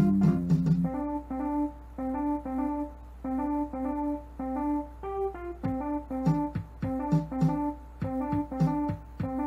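Electronic song built from Ableton Live Lite sample sounds, triggered live from a Novation Launchpad MK2: short pitched notes in a repeating melody, with a lower chord under the first second.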